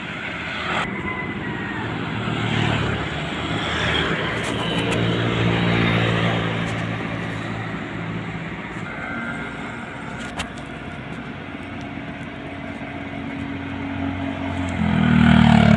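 Street traffic: motor vehicles passing, one engine rising and fading about halfway through, another engine growing loud near the end.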